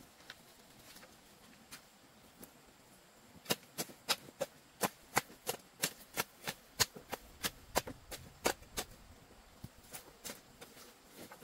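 Quick sharp knocks of a hand tool striking wood, about three a second, starting about three and a half seconds in and stopping near nine seconds, with scattered lighter ticks around them.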